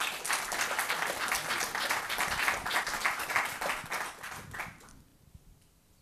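Audience applauding, dying away about five seconds in.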